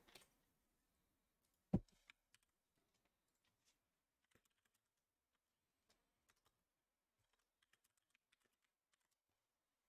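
Near silence with faint, scattered clicks and taps, and one soft knock about two seconds in.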